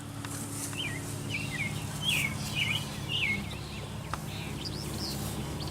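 Steady low hum of honeybees from the open hive. Over it, a songbird gives a run of about six short falling chirps in the first half.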